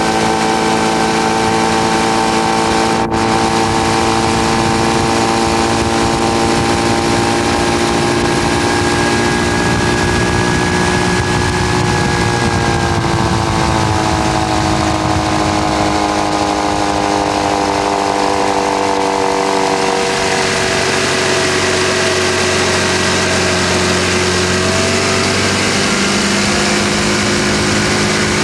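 Motorboat engine running steadily, its pitch sinking slowly through the middle and dropping a step about two-thirds of the way through.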